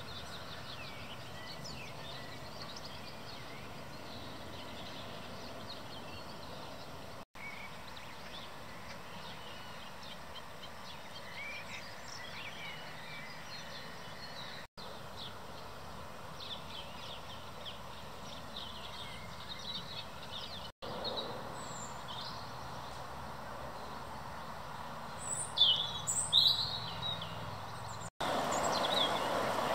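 Waterside park ambience: small birds chirping and singing over a steady low background hum, broken by four brief dropouts. Near the end come a few loud, sharp bird calls, and then a louder steady noise takes over for the last second or so.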